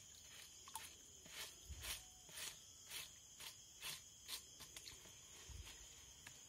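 Faint rhythmic sloshing of water as a gold pan is swirled and dipped in a shallow pool to wash out light gravel, about two swishes a second. A steady high-pitched insect chorus runs underneath.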